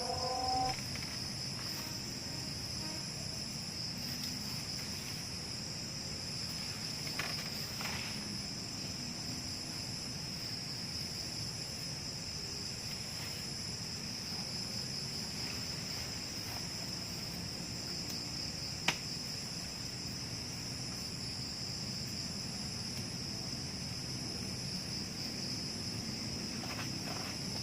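Insect chorus, a steady high-pitched chirring, with a few faint ticks and one sharp click about nineteen seconds in.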